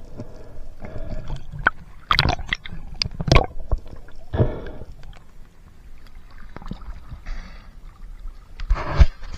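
Water sloshing and gurgling around a diver's action camera as a speared fish is hauled up and the camera breaks the surface. Several sharp knocks and splashes break through, the loudest about three seconds in and near the end.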